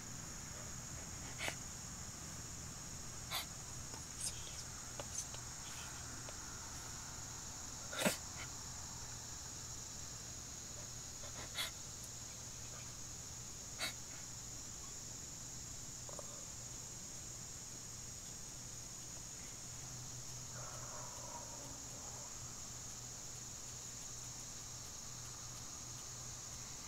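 Steady high-pitched chorus of insects, with a scattering of short clicks and taps, the loudest about eight seconds in.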